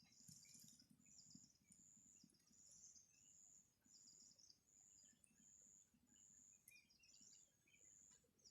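Faint outdoor ambience: a small animal's short, high-pitched chirps repeating evenly about one and a half times a second over a low background hum.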